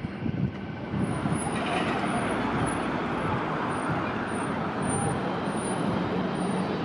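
A bus running, with steady engine and road noise.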